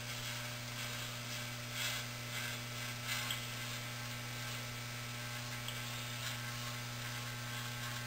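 Corded electric hair clippers running with a steady hum as they trim along the front hairline. Faint brief rasps of the blades cutting come about two and three seconds in.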